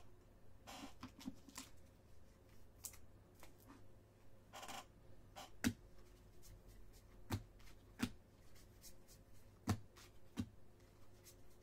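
Football trading cards being handled and flipped through a stack by hand: faint sliding and rustling with scattered sharp card clicks, a few of them louder in the second half.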